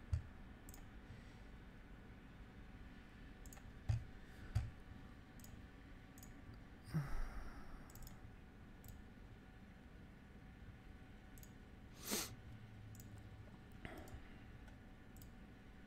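Quiet, scattered clicks of a computer mouse and keyboard, with a few soft knocks on the desk, a brief rush of noise about seven seconds in and one louder knock about twelve seconds in.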